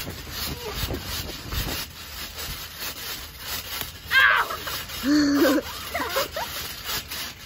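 Kids bouncing on a trampoline, with dull thumps and creaking from the mat and springs under them. About four seconds in, a child lets out a high squeal, followed by laughter.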